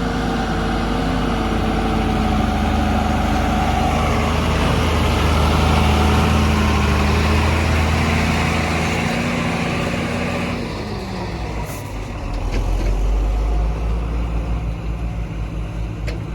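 Heavy diesel engine running at raised revs, then dropping in pitch about ten seconds in and settling to a lower, pulsing idle.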